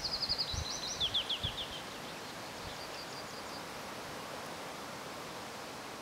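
A songbird singing a quick phrase of short, high, falling notes in the first two seconds, with a few fainter notes a second later, over steady outdoor background hiss.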